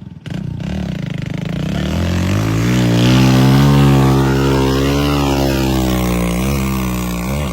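A vehicle engine revving hard under load as it tries to climb. It rises in pitch about two seconds in and holds at high revs.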